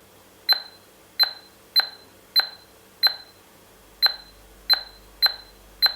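Smart door lock keypad beeping as the admin password is keyed in: nine short, high beeps, one per key press, coming about every half second to second with a slight pause near the middle.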